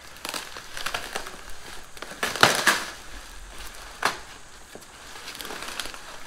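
Cardboard box being ripped and crushed open by hand, irregular crackling tears of cardboard and packing, loudest about two and a half seconds in, with a sharp rip about four seconds in.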